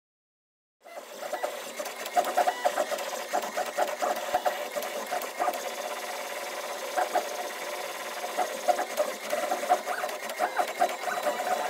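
Filament 3D printer at work: its stepper motors whir and chirp in quick, shifting pitches as the print head traces the part. It starts about a second in.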